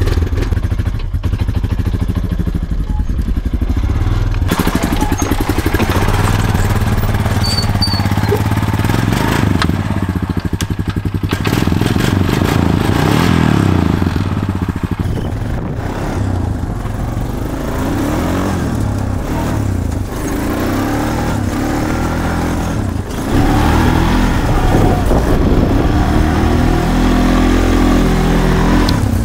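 Honda Foreman ATV's single-cylinder engine running under way, the revs rising and falling as it is ridden. It eases off in the middle and picks up again about three-quarters of the way through.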